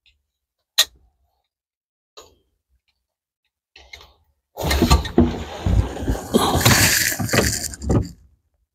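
A sharp click about a second in, then a few seconds of rustling and clattering with many small knocks as a person shifts in a car seat and reaches under the dashboard to work on the wiring.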